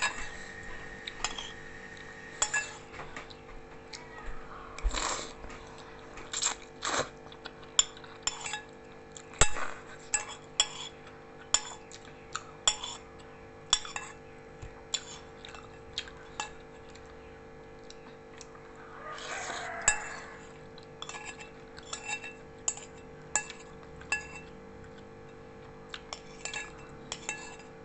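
Eating utensils clinking and scraping against a bowl in many irregular light knocks, with a steady faint hum underneath.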